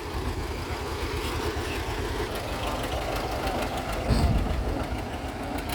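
An engine running at idle with a steady low chugging, rising louder for a moment about four seconds in.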